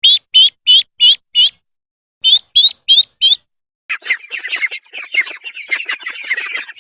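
Duckling peeping: two runs of loud, high, sharp peeps, about three a second. About four seconds in, a dense, fast chatter of many shorter, lower calls follows.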